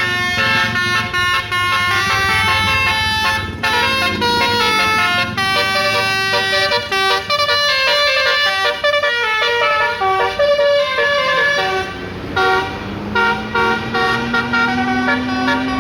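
Multi-tone telolet bus horn playing a quick tune of stepped horn notes. Near the end a low tone rises slowly underneath the notes.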